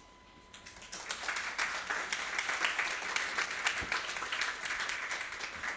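Audience applauding. The applause starts after a brief quiet about half a second in, builds up quickly and then keeps on steadily.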